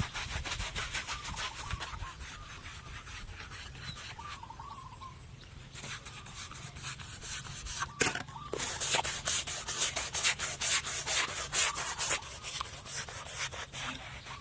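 A hand tool working wood in rapid, rhythmic rubbing strokes, sanding or rasping. The strokes ease off in the middle and grow louder again from about halfway through.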